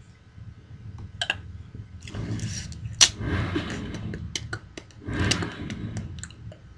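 A girl's hiccups: sharp clicks, the loudest about three seconds in, set in breathy noise, with another breathy burst a couple of seconds later.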